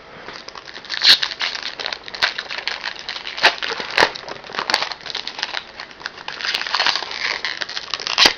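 Plastic foil wrapper of a hockey card pack crinkling and crackling as it is handled and torn open. There are sharp crackles throughout, starting about a second in.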